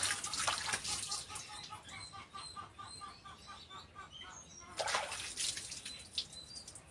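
Splashing water and hands rubbing wet feet, in two short bursts, at the start and again about five seconds in. Between them a chicken clucks steadily, about three clucks a second, with small birds chirping.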